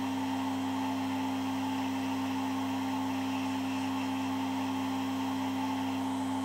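Electric podiatry nail drill running at constant speed, its burr filing down a toenail, a steady even hum.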